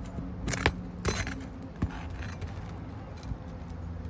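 A handful of sharp metallic clinks and scrapes, spaced irregularly: roofing tools and loose nails or debris being handled while a shingle repair area is cleared.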